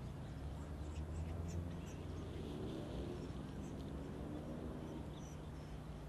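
Outdoor ambience dominated by a steady low hum of distant engines, with one distant motor swelling and fading in the middle. Faint short bird chirps are scattered on top.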